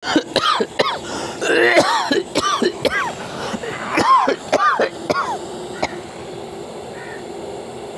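A person in a coughing fit: a rapid string of harsh coughs over about the first five seconds, then it stops. This is the kind of severe coughing bout the remedy is meant for.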